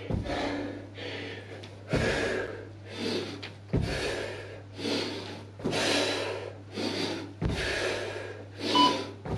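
A man breathing hard and fast through a set of split squat hops, with a dull thud of his feet landing about every two seconds. Near the end comes one short electronic beep from an interval timer, the first of the countdown beeps to the end of the work set.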